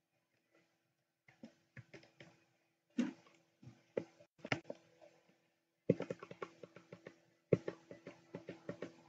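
Computer keyboard keys being pressed: a few scattered taps at first, then a quick run of repeated key presses in the second half as characters are deleted with backspace.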